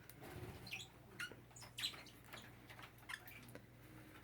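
Faint, scattered short chirps from small parakeets, about six brief high notes spread over a few seconds, the loudest a little before the middle.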